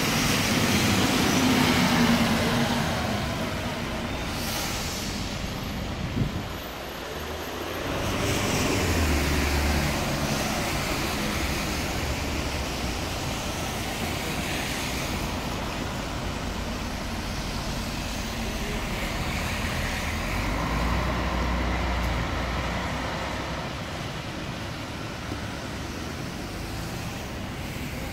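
Street traffic on a wet road. A Setra bus passes close at the start, its engine note falling slowly as it goes by, loudest in the first couple of seconds. Steady traffic and tyre noise follows.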